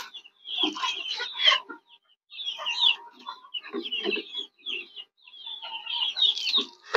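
Several chickens clucking in short repeated calls, in about four bouts with brief pauses between them.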